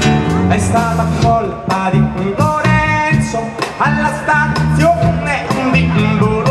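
Live band playing an upbeat rock song, with a drum kit keeping a steady beat under electric guitar and a held, sustained lead melody.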